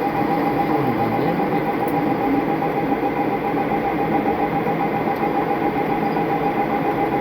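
Metal lathe running steadily, a constant mechanical hum with a steady whine over it.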